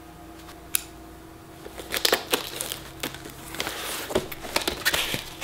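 A cardboard mailer box sealed with packing tape being handled and picked at by hand: scattered clicks, taps and scraping of cardboard and tape, starting about two seconds in, over a faint steady hum.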